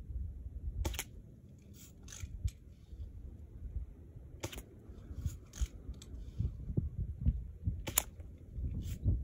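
A string of sharp clicks and knocks as BBs from a Daisy Red Ryder spring-powered BB gun strike around a shotgun shell standing on a log. The loudest comes about eight seconds in, as the shell is hit and tips over. A low wind rumble on the microphone runs underneath.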